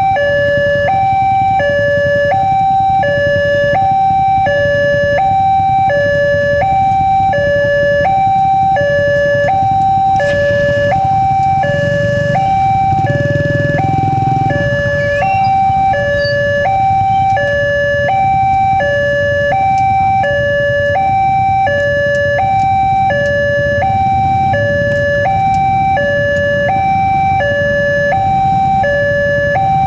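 Railway level-crossing warning alarm from the horn loudspeaker on the signal post: an electronic two-tone alarm switching evenly between a high and a low note, about one high-low cycle a second, without pause. Beneath it runs the low rumble of idling motorcycle engines, and one engine swells briefly about halfway through.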